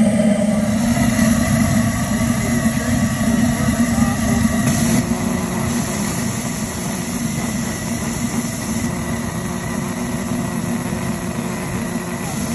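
Diesel oil burner firing in a model steam locomotive's firebox, its steam-atomized Delavan nozzle flame running with a steady rushing noise and a low hum.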